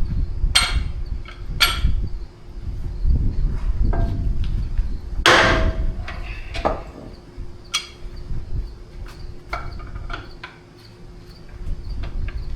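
Hammer blows on the taper-lock hub of a John Deere 730's crankshaft, driving the hub to seat it. The sharp strikes come at uneven intervals, about a dozen of them, the loudest about five seconds in, over a faint steady hum.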